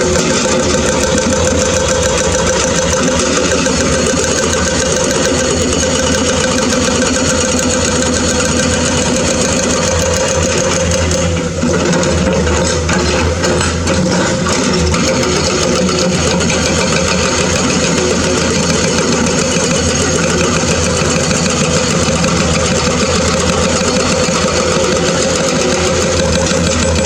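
Dump truck diesel engines running steadily, a continuous engine drone with a brief small dip about eleven seconds in.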